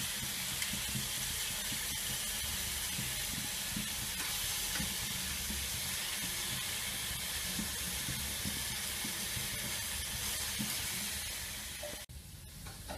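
Beef steaks and an onion slice sizzling in hot fat in a frying pan, a steady hiss that cuts off abruptly near the end.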